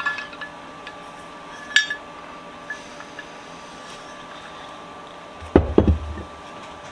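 Metal bench vise parts being handled: a sharp clink about two seconds in, a couple of light ticks, then a heavier clunk and clatter of metal on metal near the end.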